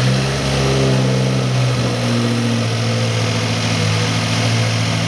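Subaru WRX's 2.0-litre turbocharged flat-four idling steadily just after being started.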